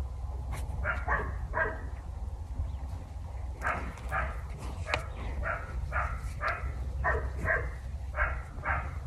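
A dog barking repeatedly, in runs of short barks about two a second.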